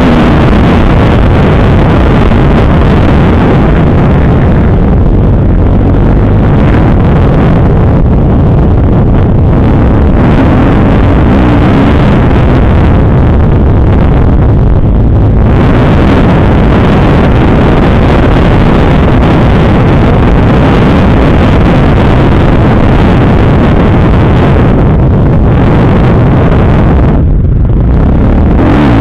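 Kawasaki KX250F four-stroke single-cylinder motocross engine revving hard under acceleration, rising and falling with the throttle and easing off briefly several times, with wind rushing over the onboard microphone. Very loud throughout.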